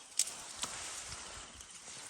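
A sharp snap, a second fainter one, then about half a second of rustling, as of plants being handled.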